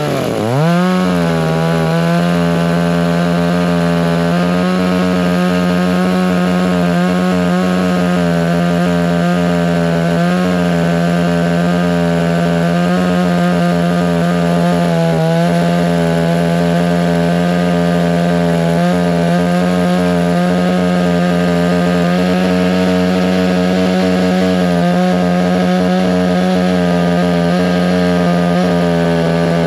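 Two-stroke chainsaw running at high revs while cutting through the tree, a loud steady whine. It starts abruptly, its pitch dipping and climbing back in the first second, then holds nearly constant with a few brief small dips as the chain loads in the wood.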